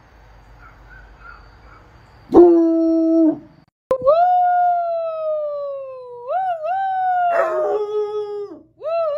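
Bloodhound howling: after about two seconds of faint background, a short low howl, then a long howl that slides slowly down in pitch, wavers up and down twice, and carries on falling, with a lower howl overlapping it near the end and a new howl starting just before the end.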